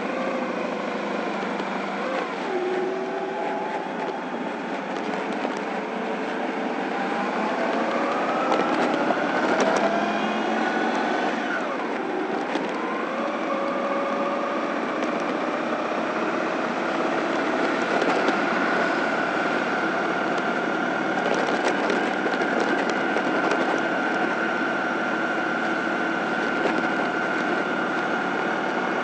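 Honda ST1100's V4 engine pulling away and gathering speed, its pitch rising for several seconds. It drops back sharply about eleven seconds in at an upshift, climbs again, then holds a steady note while cruising.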